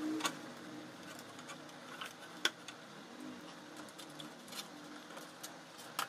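Light scattered clicks and ticks from handling a plastic bottle cap and a pair of pliers with wire, the sharpest one about two and a half seconds in.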